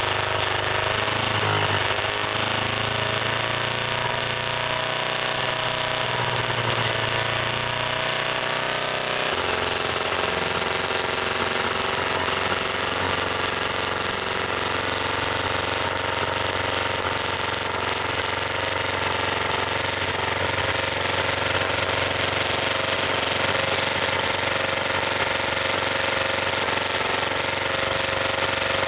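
Microcosm M12 miniature gas engine running steadily, a fast continuous mechanical beat; its sound shifts about nine seconds in.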